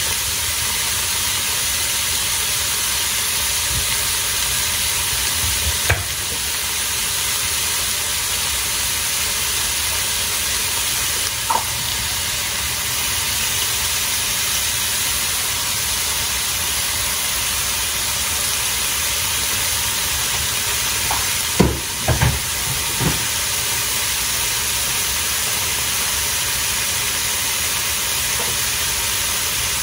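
Ground-beef patties and onion rings sizzling steadily in a hot skillet, with a few brief knocks and clicks, the loudest a short cluster a little past two-thirds of the way through.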